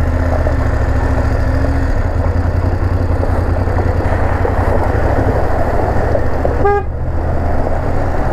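Adventure motorcycle engine running at low speed, with tyre and wind rush as it rides over a wet, rutted gravel road. About seven seconds in, a horn gives one short toot.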